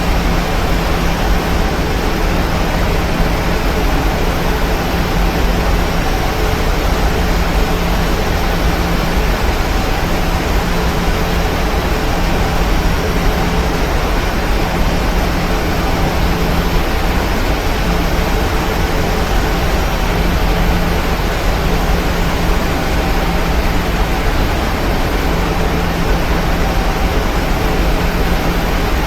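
Steady cabin noise inside a Boeing 737-900 in descent: rushing airflow and engine noise from its CFM56-7 turbofans, with faint steady hums underneath.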